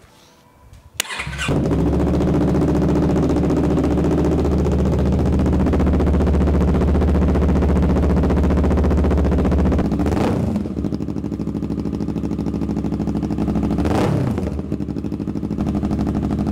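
Yamaha R3's parallel-twin engine, breathing through a full Akrapovič Racing Line exhaust, started for the first time: a click of the starter about a second in, the engine catches, then it runs at a loud, steady idle. Twice in the second half the throttle is blipped, the revs rising and falling back.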